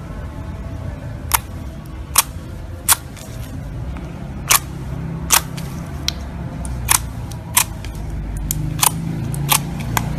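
Slime being pressed and squeezed, giving about a dozen sharp pops and clicks at uneven intervals over a low steady background rumble.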